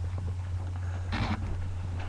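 Steady low hum, with one short breathy noise about a second in.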